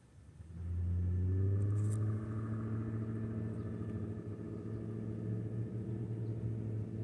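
An engine running at a steady low pitch, starting about half a second in.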